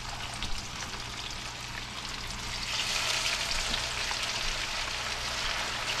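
Small seasoned bluegill fillets frying in hot oil in a wok: a steady sizzle with fine crackling that swells about three seconds in.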